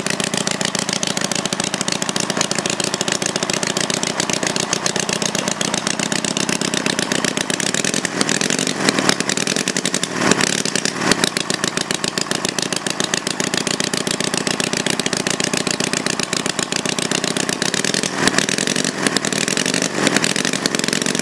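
Homemade twin-cylinder engine made from two Briggs & Stratton single-cylinder engines, running unmuffled with both cylinders firing: a steady, rapid popping exhaust. It grows louder for a moment a few times, around halfway and near the end.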